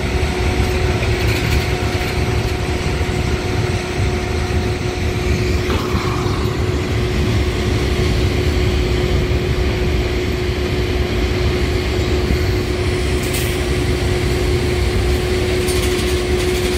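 An engine running steadily with a constant hum at one pitch, over a low rumble of wind on the microphone.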